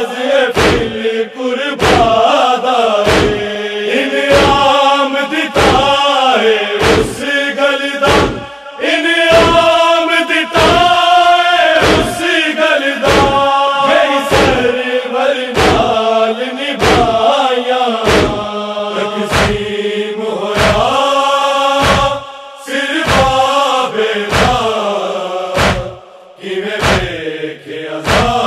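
Male group chanting a Punjabi noha (Shia lament) in unison, over a steady beat of open-palm chest strikes (matam).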